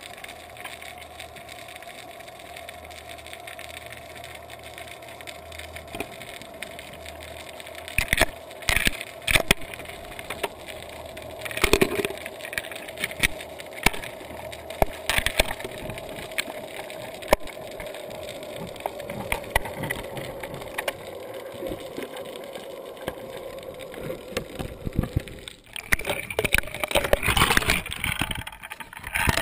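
Underwater sound picked up inside a GoPro Hero 2's waterproof housing as it is hauled up on a fishing line: a steady hum, slowly falling in pitch, with a few sharp knocks. About 26 seconds in it changes to sloshing and splashing water as the camera nears the surface.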